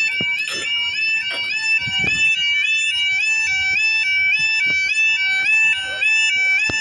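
UK level crossing yodel alarm: a loud two-tone electronic warble alternating rapidly between two pitches, warning that the barriers are lowering for an approaching train. It cuts off suddenly near the end.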